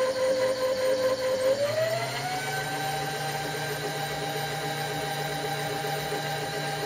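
Milling machine table power feed motor whining steadily as it drives the table along. About two seconds in, the whine glides up to a higher pitch and then holds there.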